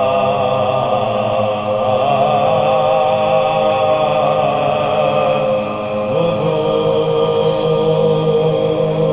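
Soz, a Muharram elegy, chanted by men's voices in long held notes. The pitch wavers on the held notes, and a new note is taken up about six seconds in.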